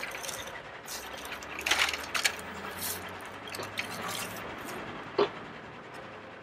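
Hard plastic knocks, clicks and rattles as a Bruder Liebherr toy wheel loader is handled on a toy low-loader trailer. The clicks come in a cluster about two seconds in, and the sharpest single knock comes about five seconds in.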